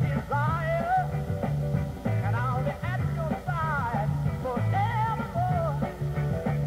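A 1960s soul record playing, with a repeating bass line and a melody line sliding up and down over the band.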